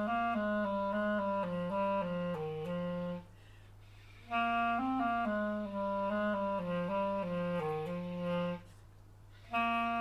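Background music: a slow solo woodwind melody of distinct held notes, played in phrases of about four seconds with a short pause between them, over a low steady hum.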